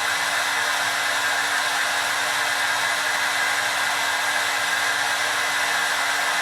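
Hair dryer running steadily: an even rush of blown air with a constant hum from its motor.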